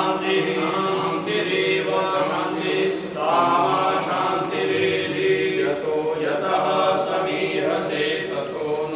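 A group of voices chanting Sanskrit mantras together in a steady, continuous recitation, typical of temple worship.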